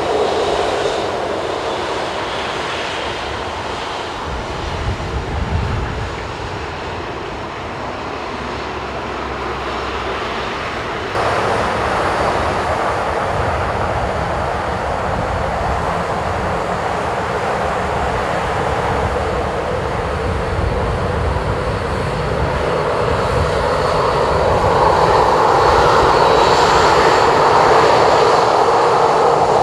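Jet engine noise of a Boeing 747-400 freighter's four turbofans on final approach: a steady rushing sound that steps up about a third of the way in and grows louder near the end as the jumbo comes closer, with a faint high whine on top.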